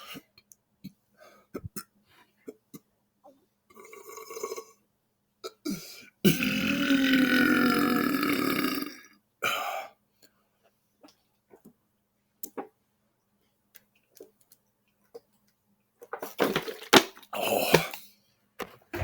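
A man's long, loud belch lasting about three seconds, with a wavering pitch, about six seconds in. A smaller sound comes a couple of seconds before it, and a quick run of short, loud sounds comes near the end.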